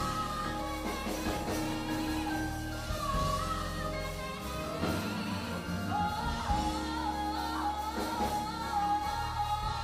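Music with a singing voice: long held notes over a steady bass line, with a new melody line entering about six seconds in.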